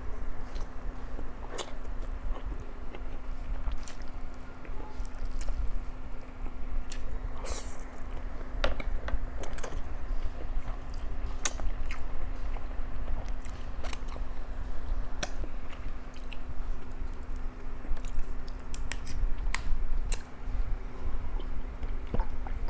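Close-up eating sounds: a person chewing and biting Chapagetti black bean noodles, with scattered sharp wet mouth clicks. A steady low hum runs underneath.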